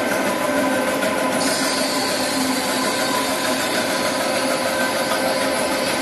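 Dry offset cup printing machine running: a steady mechanical drone with several held tones, and a fast fine ticking over it that stops about a second and a half in.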